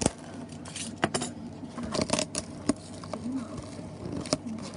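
Crinkling and clicking handling noise from a sealed trading-card box being worked open by hand, with scattered sharp crackles of plastic wrap and cardboard.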